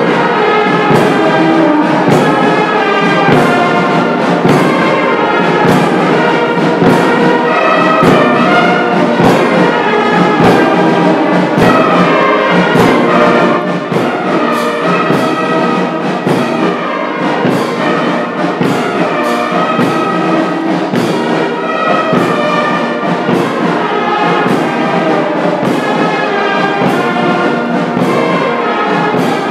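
Uniformed brass marching band playing a march as it marches, with brass instruments over a steady beat. The music stops abruptly at the very end.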